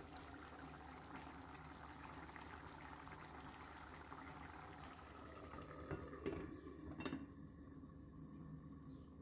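Bulgur pilaf with meat simmering in a pan, a faint bubbling that is plainer while the glass lid is off. The glass lid clinks twice against the pan as it is set back, about six and seven seconds in.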